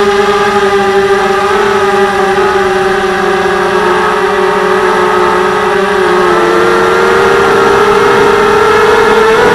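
Electric motors and propellers of a TBS Gemini FPV hexacopter in flight, heard from the onboard camera: a loud, steady buzzing whine. Its pitch dips a little and climbs again a bit past halfway.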